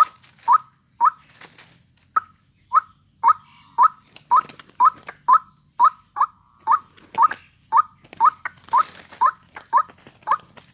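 White-breasted waterhen calls: a loud, short, rising note repeated evenly about twice a second, the repetitive call that is used to lure ruak-ruak into snares.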